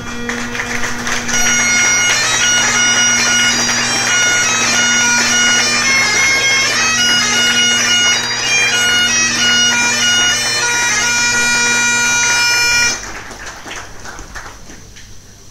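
Great Highland bagpipe played solo. The steady drones strike in first, the chanter's melody joins about a second later, and the tune cuts off abruptly about thirteen seconds in.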